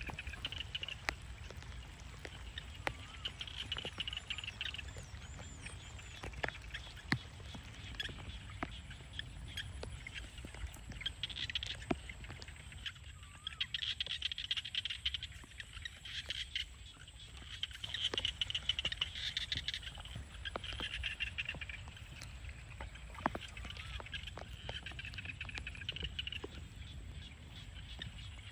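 Frogs calling from a wet rice field in repeated bouts of a few seconds each, a pulsing chorus, with scattered light clicks of footsteps through the grass.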